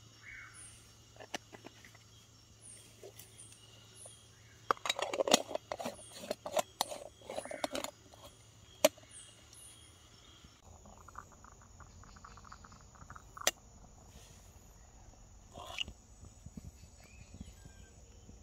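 Dawn forest ambience: insects and tree frogs calling faintly, with short high chirps repeating. About five to eight seconds in comes a run of clattering and knocks from camp cookware being handled to make coffee, and a few single sharp clicks follow later.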